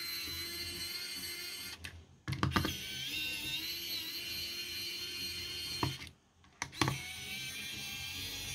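Small electric screwdriver running as it backs out the Phillips screws from the plastic back of the sensor. It cuts out twice, about two seconds in and about six seconds in, and sharp clicks mark each restart.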